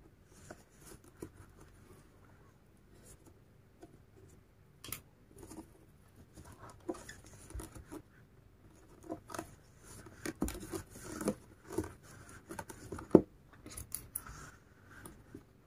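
Crochet hook pulling thick macramé cord through stitches: soft rustling and scraping of the cord, with scattered light clicks and one sharper click near the end.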